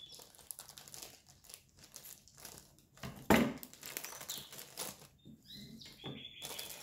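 Plastic shrink-wrap on a rolled canvas crackling and rustling as it is cut open with scissors and handled, with one louder rustle about three seconds in.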